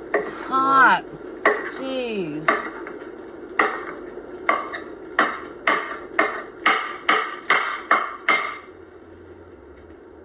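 A kitchen knife chopping on a wooden cutting board: a run of sharp strikes that comes faster in the middle and stops about eight and a half seconds in. Two short falling tones sound near the start, the louder one about a second in.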